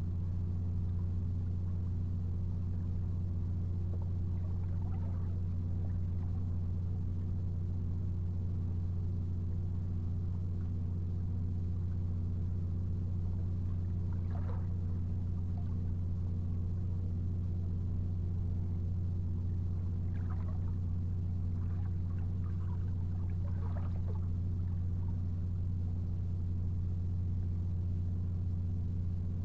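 A steady low mechanical hum that holds the same pitch and level throughout, with a few faint, brief higher sounds at about 5 seconds, 14 seconds and between 20 and 24 seconds in.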